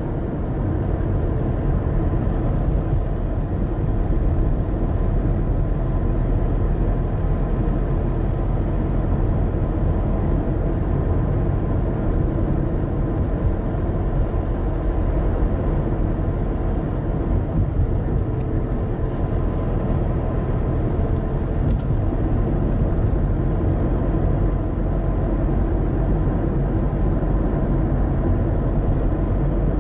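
Car interior noise while driving: a steady low rumble of engine and road noise, heard from down in the footwell.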